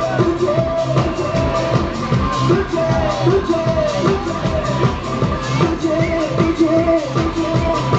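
Live band playing an upbeat Hindi pop song with a steady dance beat, a male singer's voice over it through the PA.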